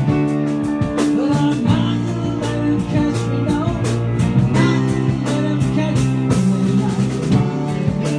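A live rock band playing: keyboard, guitar and drum kit over a steady beat.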